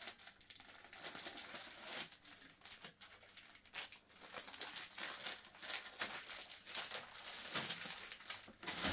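Clear plastic bag crinkling and paper instruction booklets rustling as they are handled, a run of irregular soft crackles.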